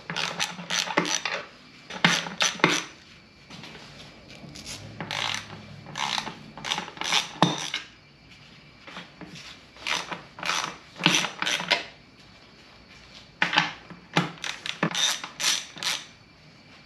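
Hand ratchet clicking in quick runs, several bursts with short pauses between them, as the 10 mm bolts holding the fuel rail to the intake manifold are backed off.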